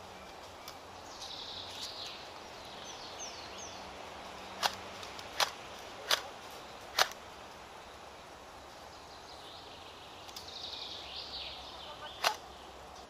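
Airsoft rifle firing single shots: four sharp cracks a little under a second apart about five seconds in, then one more near the end. Birds chirp in between.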